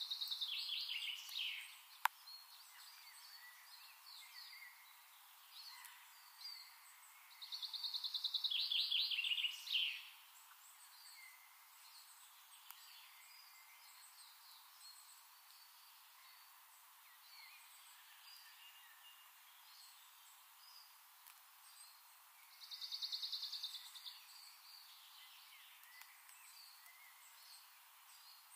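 A songbird singing three short trilled phrases, each a rapid trill that drops in pitch, spaced several seconds apart, over faint outdoor background. One sharp click about two seconds in.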